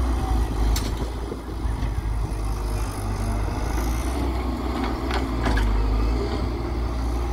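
Diesel engine of a Hyundai Robex 1300W wheeled excavator running steadily under load while the boom lifts and swings a full bucket of soil, with a few short knocks about five seconds in.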